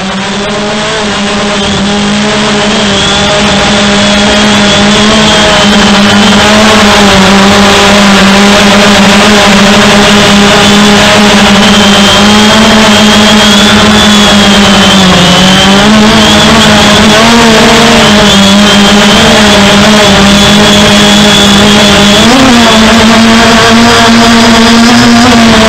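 DJI Phantom 2 Vision quadcopter's motors and propellers in flight, a loud steady buzzing hum picked up by a recorder mounted on the drone itself. It fades in over the first few seconds, and its pitch wavers and dips briefly about halfway through and again near the end.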